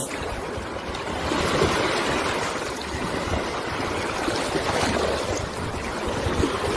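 Shallow sea surf washing in at the shoreline: a steady rush of water noise.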